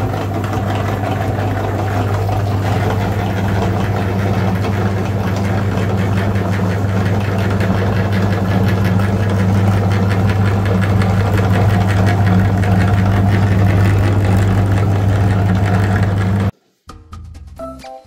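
Motor-driven meat grinder running steadily with a low hum as it grinds jelly through its plate. The hum cuts off suddenly about 16 seconds in, and light background music follows.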